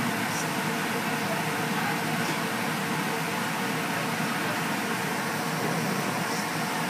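The electric inflator blower of an inflatable bounce house running steadily, a constant rush of air with a low hum, heard from inside the inflatable.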